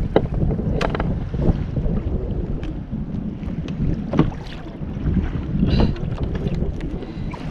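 Wind buffeting the microphone of a kayak-mounted camera at sea, a steady low rumble, with water lapping against the kayak's hull. A few sharp clicks and knocks stand out, about a second in and again around four and six seconds.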